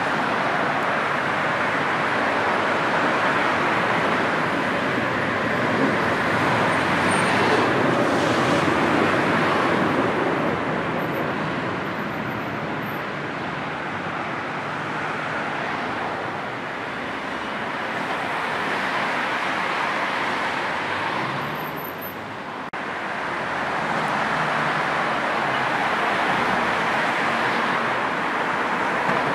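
Steady road traffic noise from dense, slow-moving motorway traffic: a continuous haze of engines and tyres that slowly swells and eases as vehicles pass.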